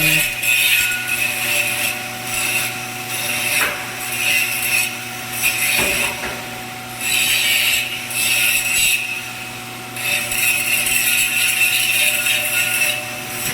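Stick arc welding crackling and hissing in stretches of a second or two that stop and start, over a steady low hum.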